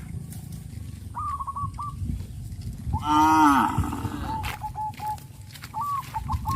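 Several cattle mooing in turn. The loudest, fullest moo comes about three seconds in, with shorter, higher calls before and after it.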